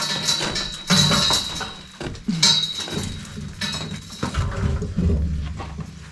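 A large stone being worked loose by hand from a rubble-stone wall, scraping and grating against the stones and clay mortar around it in irregular bursts, with a low rumble about two-thirds of the way through.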